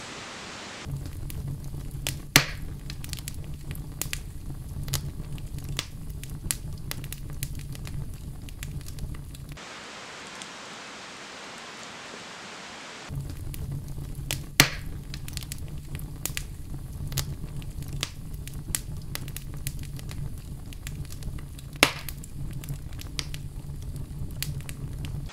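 Campfire crackling and popping, with a low rumble underneath and a few sharp loud pops. The crackling drops out for a few seconds in the middle, leaving only a steady hiss, and then resumes.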